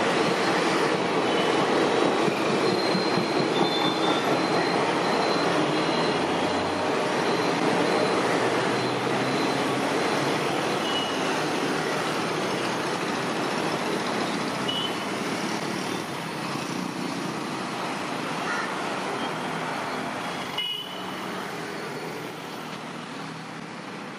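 Passenger train coaches rolling along the track, a steady rumble of wheels on rail that fades slowly as the train moves away. One sharp knock sounds a few seconds before the end.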